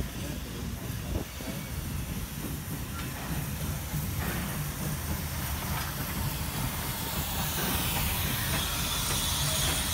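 Steam hissing from the NM-class steam locomotive No. 25, growing louder near the end as the engine comes alongside, over a steady low rumble of the train.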